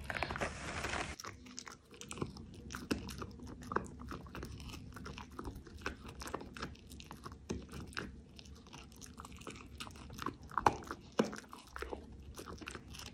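A Samoyed crunching and chewing a chicken twist treat stick, with irregular crunches throughout and a couple of louder ones about ten seconds in.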